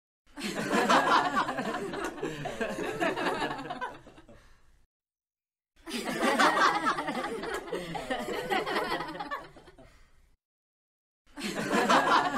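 Human laughter in three separate bursts, each starting loud and fading out over four to five seconds, with about a second of silence between them; the third begins near the end.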